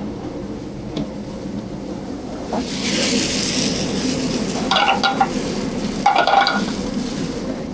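Food sizzling in sauté pans on a gas range, swelling to a loud hiss about three seconds in, with two short metal clatters of pans or tongs a little later, over a steady low hum.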